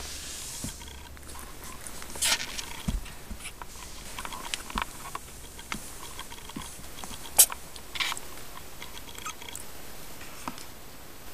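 Three-week-old Siamese kittens nursing on their mother: scattered small suckling clicks and rustling of fur and blanket, with a few sharper knocks.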